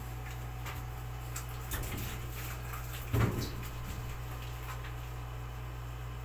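Wet rubbing and light knocks as a small dog is scrubbed by hand in a stainless steel tub, with a louder short bump about three seconds in. A steady low hum runs underneath.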